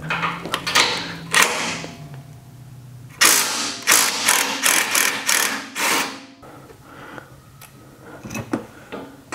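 DeWalt cordless ratchet on a socket extension spinning a 15 mm nut off a shock tower mount bolt, run in short bursts: a few in the first two seconds, then about six in quick succession in the middle. A few light clicks follow near the end.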